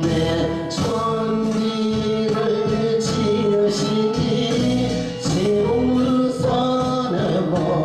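Gospel song: long held sung notes that glide between pitches, over steady instrumental accompaniment.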